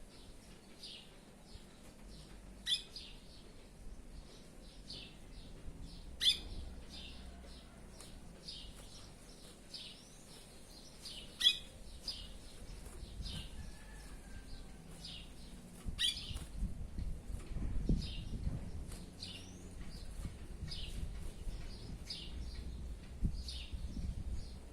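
Curió (chestnut-bellied seed finch) singing a steady run of short, high whistled notes, about two a second, broken by four sharp clicks.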